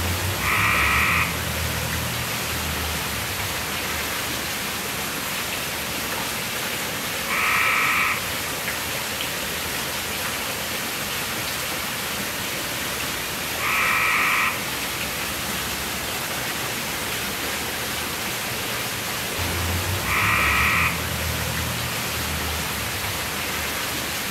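Steady rush of water falling down a stone fountain cascade, with a frog croaking four times, one short call about every six to seven seconds.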